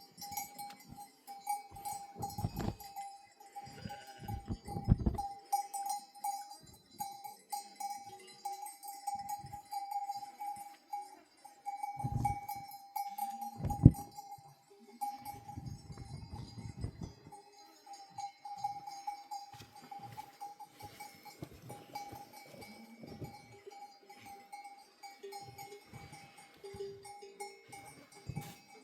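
Bells hung on grazing sheep clinking irregularly and without pause, with a few dull low thumps in between.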